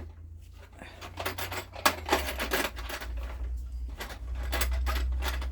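Small hard objects clicking and clattering as they are handled and moved about, with one sharper knock about two seconds in, over a steady low hum.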